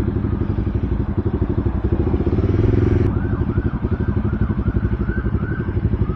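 Motorcycle engine running steadily at idle with a fast, even pulse. About halfway through there is a run of eight or so short high chirps, each about half a second apart.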